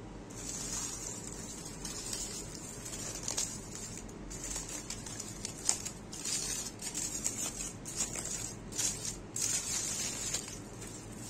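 Aluminium foil crinkling in irregular bursts as a foil wrapping is handled and opened.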